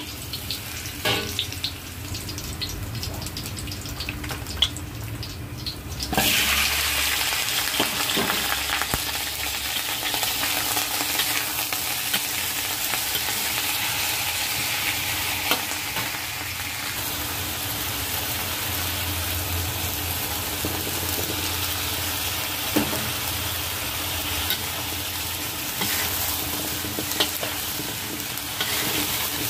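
Ginger frying in oil in a wok, with a metal spatula scraping and clacking against the pan. About six seconds in, the sizzle jumps suddenly much louder, as when chicken pieces go into the hot oil. It then stays a loud, steady sizzle as the chicken is stir-fried, with spatula scrapes and clacks throughout.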